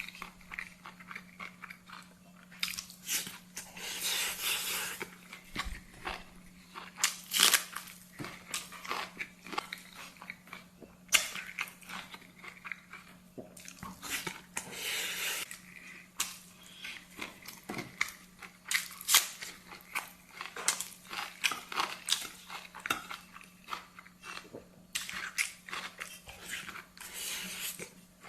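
A person eating close to the microphone: crunchy chewing and biting with many irregular small clicks and smacks, over a faint steady hum.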